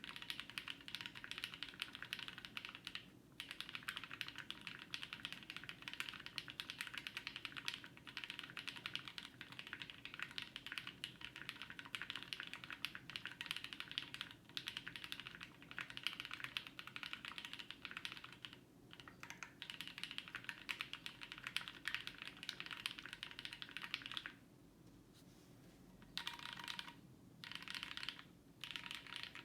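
Steady fast typing on a plateless IDB60 mechanical keyboard with linear frankenswitches (Gateron Black bottom housings, Cream tops, UHMWPE stems, 55 g TX springs, filmed) and GMK doubleshot ABS keycaps. The typing stops for about two seconds near the end, then resumes in short bursts.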